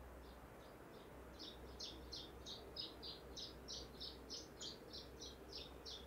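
Canary Islands chiffchaff singing: a run of short, high notes at about three a second, faint at first and louder from about a second and a half in.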